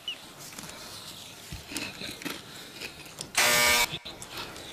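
An electric doorbell buzzer sounding once, a harsh half-second buzz about three and a half seconds in, after a stretch of faint scattered clicks.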